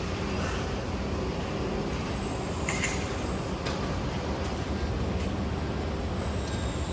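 Steady low rumble of construction-site machinery and city traffic, with a brief high-pitched screech about three seconds in.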